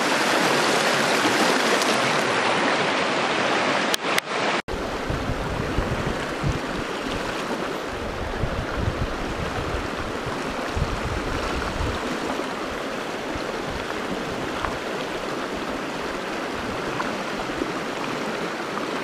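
Shallow, clear mountain creek running over rocks in riffles, a steady rush of water. The sound changes abruptly a little under five seconds in, with some low rumble after.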